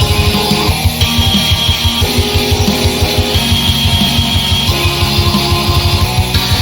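Loud rock music: guitar notes held over a fast, driving drum beat.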